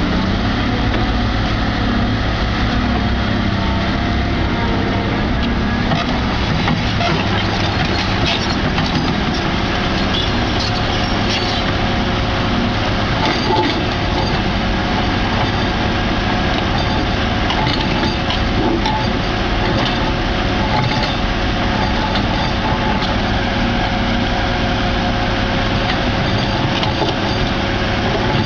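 Heavy diesel machinery running steadily, with scattered clanks and knocks over the engine noise.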